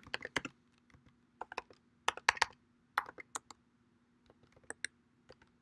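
Typing on a computer keyboard: a run of irregular, scattered keystroke clicks, with a faint steady hum underneath.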